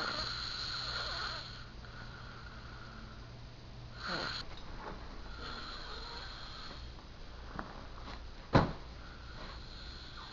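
A man snoring in his sleep, with a noisy breath every few seconds. There is a single sharp knock about eight and a half seconds in.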